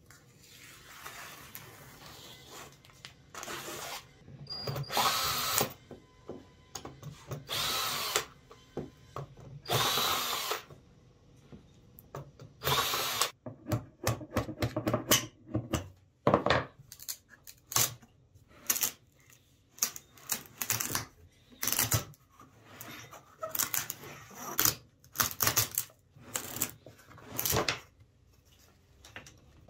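A small steel hammer tapping again and again on a cast wood-and-epoxy resin blank and its casting form, to knock the blank loose. It is preceded by rough scraping and tearing as the form's strip is pulled open at its seam.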